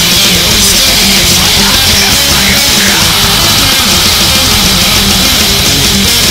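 Black metal recording: loud, dense distorted electric guitars and drums.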